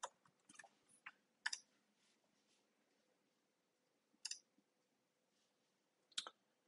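Near silence broken by about half a dozen faint, scattered clicks from a computer keyboard and mouse, most of them in the first second and a half.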